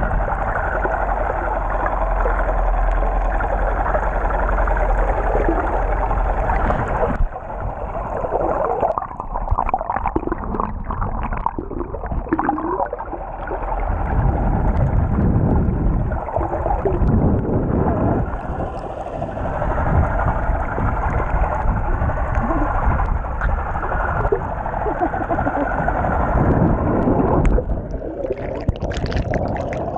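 Muffled rushing and gurgling of water recorded underwater through a camera's waterproof housing. There are clusters of bubbling about ten seconds in and a brighter burst of bubbles near the end.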